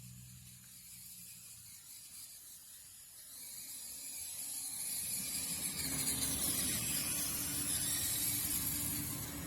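Battery-powered RC car driving, its motor whining and its tyres hissing over the ground, getting louder about halfway through.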